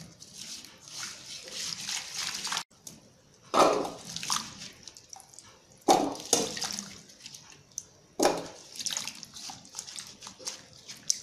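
A hand sloshing and swishing chopped elephant foot yam pieces around in turmeric water in a steel bowl, washing them, with a few louder splashes.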